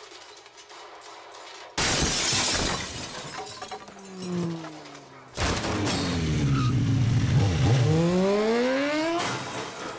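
A sudden crash of shattering glass and debris about two seconds in. A second crash follows after about five seconds, then a motorcycle engine revs hard, its pitch dipping and then climbing steeply.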